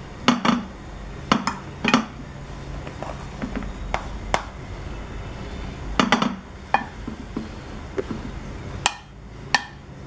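Plastic slotted spoon pressing and scraping cooked rice in a glass baking dish, with irregular knocks and clinks as it taps against the glass.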